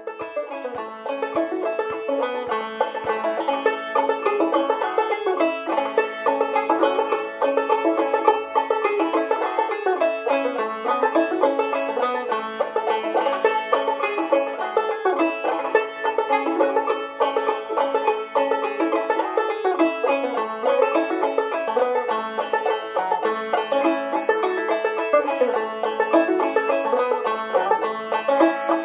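Solo five-string open-back banjo played clawhammer style in standard A tuning (aEAC#E), a steady, quick stream of plucked notes carrying an old-time fiddle tune.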